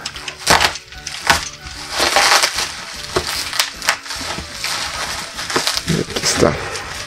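Bubble wrap and plastic film crinkling and crackling in irregular bursts as they are handled and pulled apart.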